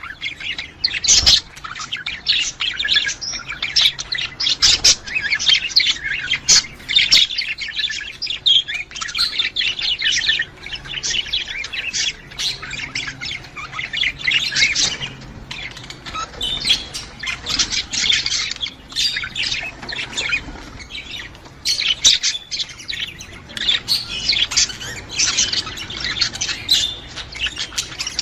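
Budgerigars chattering and warbling continuously, a dense run of quick chirps broken by squawks.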